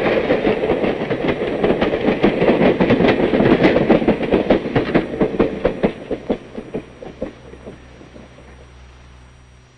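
Passenger train passing close by, its wheels clicking rapidly over the rail joints with a steady rumble. The clicking thins out and fades away over a few seconds as the last car goes by and the train moves off.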